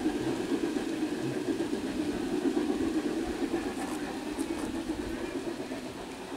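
Large-scale garden railway train, two Bachmann Spectrum K-27 model steam locomotives hauling stock cars, running along the track out of sight. Its steady rumble slowly fades as it moves away.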